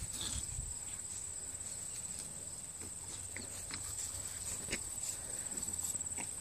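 Steady, unbroken high-pitched trill of insects in the grass, with scattered faint ticks and rustles of a pug puppy moving through the grass.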